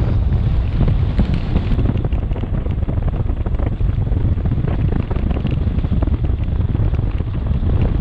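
Wind buffeting the microphone of a road bike's handlebar camera on a fast descent: a steady, loud, low noise, with the hiss above it thinning about two seconds in.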